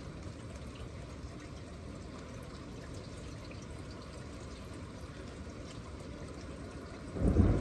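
Steady rain with water trickling and dripping. Near the end a loud, deep rumble of thunder starts.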